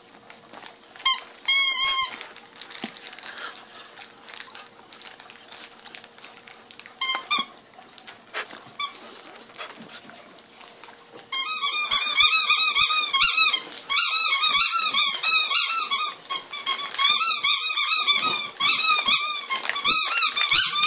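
Rubber squeaky toy squeaked by a Bernese mountain dog puppy. A few single squeaks come in the first two seconds and again around seven seconds in; from about eleven seconds in, rapid high-pitched squeaking goes on without a break.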